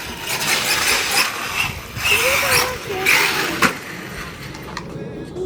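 Traxxas Sledge 6S RC monster truck running on a muddy dirt track, its motor and belted tires sounding in loud uneven surges that die down near the end.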